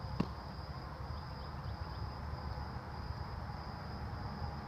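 A steady, high-pitched insect trill over a low rumble on the microphone, with one sharp click about a quarter second in.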